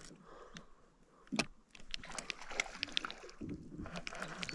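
Multiplier fishing reel being cranked to bring in a hooked fish: faint, irregular ticking and clicking from the reel, with one sharper knock about a second and a half in.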